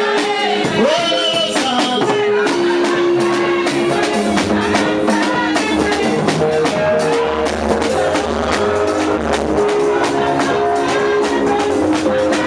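Loud, upbeat gospel praise music with a driving, steady beat and held melody notes that change pitch every second or so.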